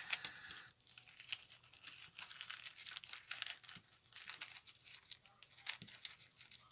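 Clear plastic bag crinkling as a clear plastic model-kit sprue is handled and slid back into it, with light scattered clicks of the plastic parts.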